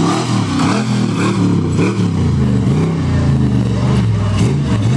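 Engine of a tube-chassis off-road rock buggy revving up and down over and over as it climbs a rock obstacle.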